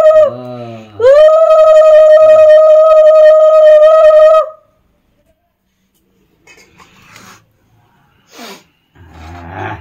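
Conch shell (shankha) blown in one long steady note. Just after the start the note falters and slides down in pitch, then it sounds again about a second in and is held for about three more seconds before stopping. Only a few faint small sounds follow.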